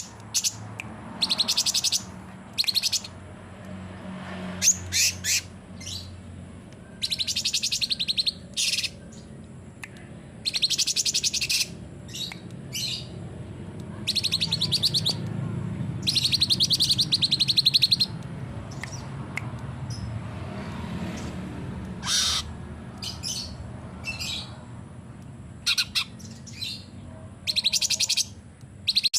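Cucak cungkok singing in loud bursts of rapid, high trilling notes, each burst lasting a second or two, separated by short pauses and a few single sharp calls.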